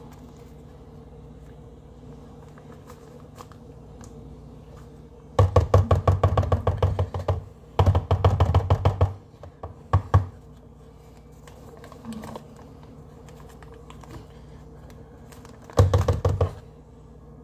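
Paper butter wrapper being peeled off a stick of butter and crinkled, in four bursts of rapid crackling: about five seconds in, again near eight seconds, briefly near ten, and once more near the end.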